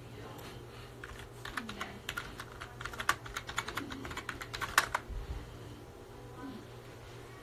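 A run of rapid, irregular clicks like typing, lasting about four seconds and stopping near the middle.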